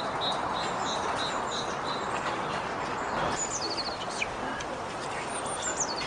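Small songbirds calling: a run of about eight evenly repeated high notes over the first two seconds, then short quick chirping phrases, with falling notes about halfway through and again near the end. A steady background noise runs underneath.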